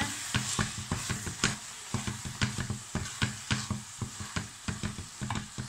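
Wooden spatula stirring and scraping chopped onions, tomatoes and cashews with spice powders in a metal kadai, about four or five strokes a second, over a steady sizzle of frying.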